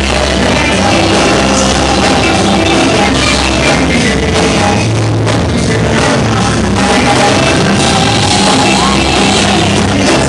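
Loud live gospel music with a woman singing over a band, amplified through PA loudspeakers.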